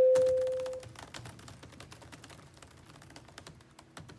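A single struck musical note rings and fades away over the first second, followed by fast, uneven typing on a laptop keyboard: a run of quick key clicks.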